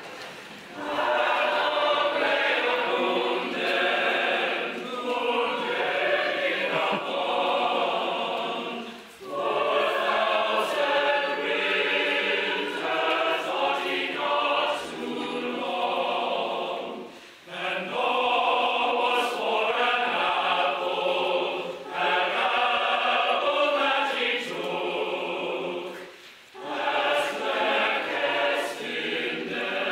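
A choir singing a Christmas carol in several parts, in phrases with short breaks between them.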